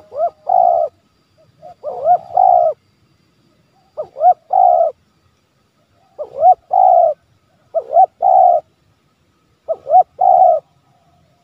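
Spotted dove (tekukur) giving its repeated coo call, six phrases about one and a half to two seconds apart, each a short swooping note and then a longer held one. This is the 'menekan' (pressing) call that keepers use to rouse wild doves and draw them in.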